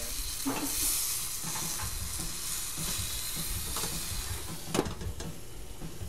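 Meatballs, mushrooms and broccoli sizzling in a skillet as a wooden spatula stirs them, with a sharp knock near the end.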